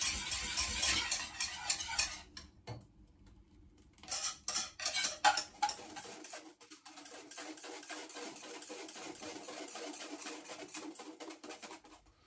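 Metal wire whisk scraping and clicking in a saucepan of hot lemon curd. After a short pause there are sharp metal clinks from the pan and a fine-mesh sieve as the curd is poured through. Then comes a softer, steady scraping as it is worked through the sieve.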